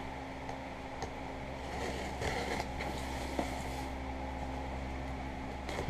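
A steady shop hum, with rustling and a few light clicks about two seconds in and again near the end: a box and its packing being handled as it is unpacked.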